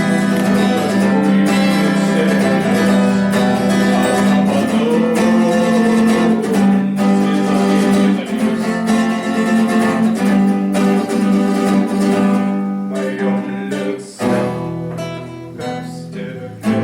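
Acoustic guitar strummed steadily as the accompaniment to a bard song. The playing briefly drops away about fourteen seconds in, then resumes more softly.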